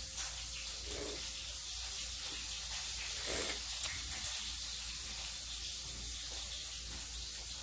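Steady sizzling hiss of food frying in a pan nearby, with a couple of small clicks as a duck eggshell is picked apart by fingertips.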